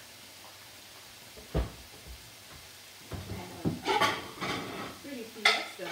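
Ground beef taco meat sizzling faintly in a stainless steel skillet, with a single knock about a second and a half in, then a run of scraping, clattering cookware sounds in the second half.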